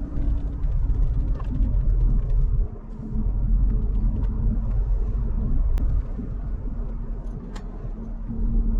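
Car driving, heard as a steady low engine and road rumble with a faint hum, easing briefly about three seconds in.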